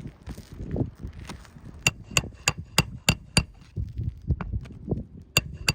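Hammer striking roofing nails in asphalt shingles: two runs of sharp, evenly paced blows with a metallic ring, about three a second, with duller knocks and rustling between them.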